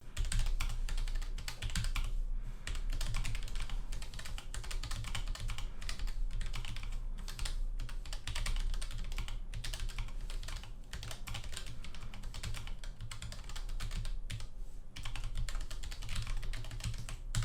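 Typing on a Keychron K1 V4 low-profile mechanical keyboard with Gateron low profile brown (tactile) switches: a rapid, uneven stream of key clicks with short pauses between bursts, recorded with no processing.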